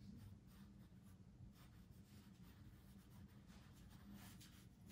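Faint scratching of a pencil on a sketch pad as it draws a series of short strokes, over a low steady hum.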